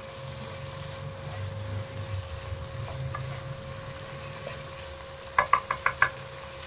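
Diced potatoes and grated carrot frying gently in oil in a nonstick wok, under a steady low hum. Near the end a wooden spatula stirs them, knocking against the pan five times in quick succession.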